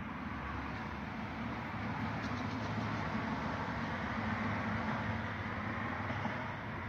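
Road traffic: a vehicle passing on the street, a steady rumble that builds from about two seconds in and eases near the end, with a few faint high ticks partway through.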